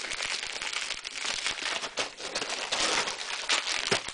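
Shipping packaging being handled and crinkling, an uneven run of rustles and crackles.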